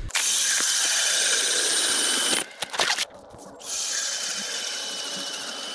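Ice auger boring through lake ice: a steady scraping, grinding hiss. It breaks off briefly about two and a half seconds in, then resumes a little more quietly.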